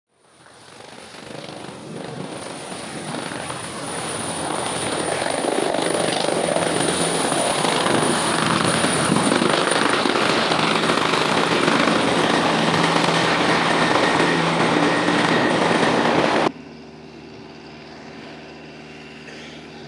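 Bell 412 twin-turbine helicopter hovering close by: dense rotor and engine noise with a thin high whine over it, building over the first few seconds and then holding steady. It cuts off suddenly near the end, leaving a much quieter steady background.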